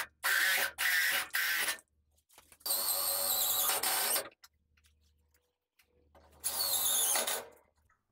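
Cordless drill-driver run against the steel side of a laser cutter's cabinet to fix a bracket: three quick trigger bursts in the first two seconds, then a longer run with a high motor whine, and another short run near the end.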